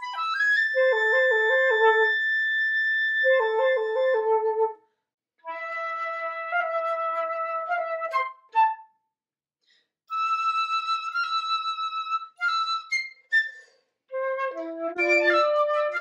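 Piccolo and two flutes playing together: one long held high note over rapid back-and-forth figures in the lower parts, then short phrases and a group of detached high notes broken by brief pauses, building into a busy passage near the end.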